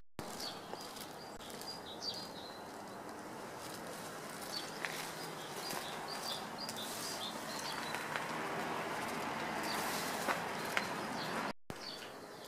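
Small birds chirping in short, scattered high calls over a steady background hiss, with a few light clicks.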